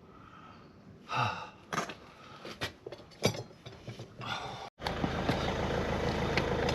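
A person gasping and breathing hard with effort, with a few sharp clicks and knocks of handling, then an abrupt cut to a steady background hum about three-quarters of the way through.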